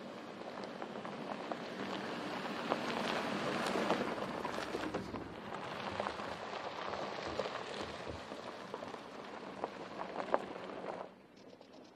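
Tyres of a 2019 Porsche Cayenne Turbo rolling over a loose gravel track: a crunching hiss full of small stone pops and crackles. It grows louder over the first few seconds and cuts off suddenly about a second before the end.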